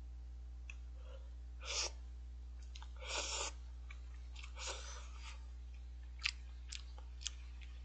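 A person eating instant cup ramen close to the microphone: three short noisy slurps of noodles, then chewing with a few small mouth clicks near the end.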